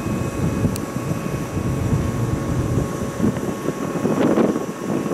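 JR 105-series electric train cars moving past at close range, with a low, uneven rumble from the wheels and running gear.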